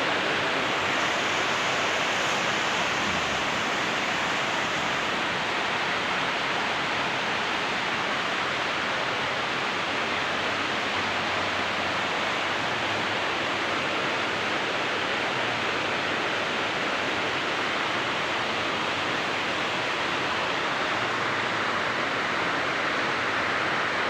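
Steady, even hiss of background noise, with no other sound standing out.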